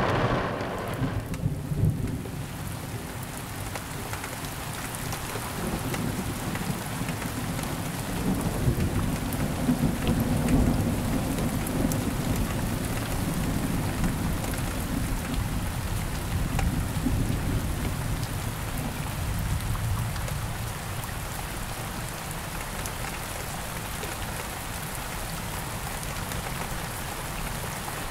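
Steady rain falling, with low rolling thunder that swells twice.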